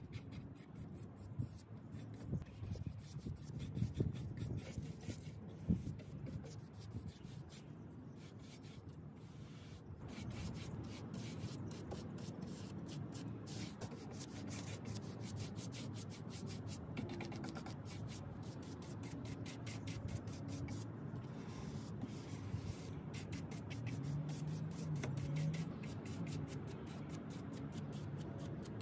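A 2-inch synthetic paintbrush rubbing paint onto a wooden dresser skirt in quick back-and-forth strokes, a soft scratchy brushing that runs steadier about a third of the way in.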